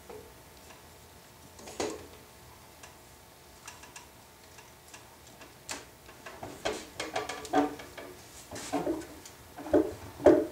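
Wooden handscrew clamps knocking and clattering against one another and their wall rack as they are taken down by hand. There are a few scattered knocks at first, then a quicker run of louder wooden clunks over the second half.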